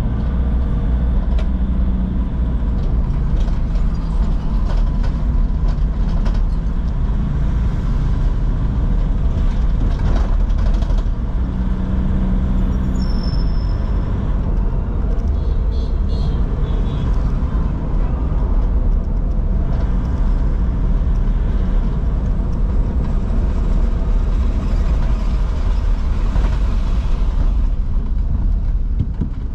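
Steady road noise inside a moving car's cabin: a low engine and drivetrain rumble with tyres hissing on wet pavement.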